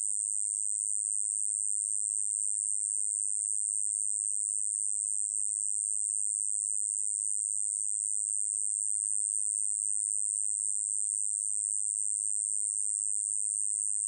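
Song of the 꼬마여치베짱이, a small conehead katydid: one continuous, high-pitched buzz, even in level and without breaks.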